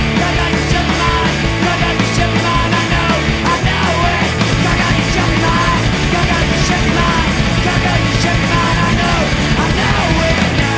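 Indie rock band playing loud and full: electric guitar, bass guitar and drum kit.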